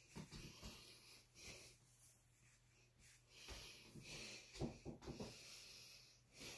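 Near silence with faint rustling of pajama fabric as the top is handled and buttoned, and a few soft handling bumps about two-thirds of the way in.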